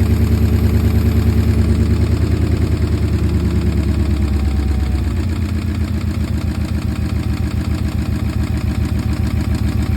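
Porsche Cayenne 955 4.5-litre V8 running at idle with a steady rhythmic knock from the engine, which the owner traced to scored cylinders.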